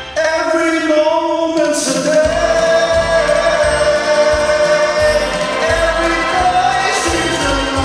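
Karaoke backing music with singing in long held notes.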